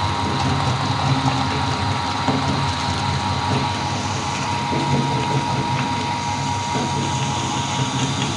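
Electric meat grinder running steadily, a low motor hum with a steady whine over it, as an Oreo cookie is fed through and ground into crumbs.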